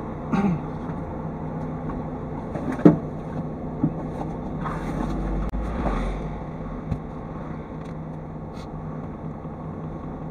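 Car engine idling steadily, heard from inside the stationary car, with a couple of sharp knocks and a brief swell of noise and low rumble about five seconds in.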